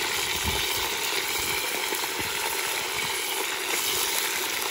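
Pieces of meat frying in hot oil in a 10-litre kazan on maximum heat, a steady sizzling hiss as the meat browns at the start of the plov.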